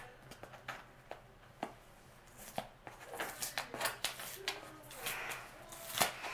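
Fingernails picking and scratching at the tape and flap of a cardboard shipping box: a string of small scrapes and clicks that grows busier about halfway through.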